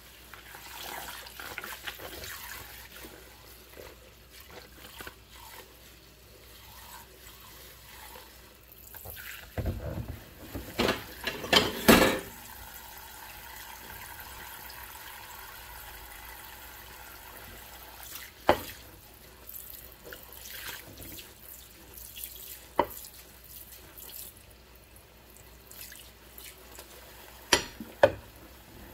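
Tap water running into a stainless-steel sink of soapy water while dishes are scrubbed with a mesh scrubber by gloved hands. A burst of clatter about ten to twelve seconds in as dishes knock in the sink, then a few single sharp knocks later on.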